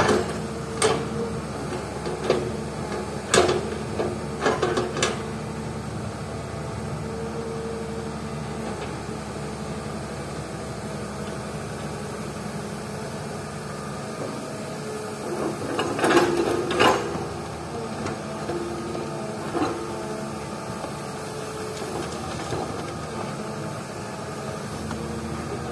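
Excavator diesel engine running steadily while its bucket loads rocky fill soil into a steel dump truck bed. Sharp knocks and clatter come several times in the first five seconds and again in a cluster about sixteen to seventeen seconds in.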